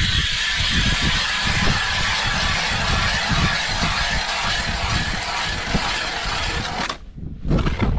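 Ice auger boring through lake ice, a steady grinding noise that stops abruptly about a second before the end. Wind buffets the microphone underneath.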